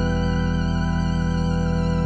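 Slow background music: one sustained chord held steady, with a wavering high melody line above it.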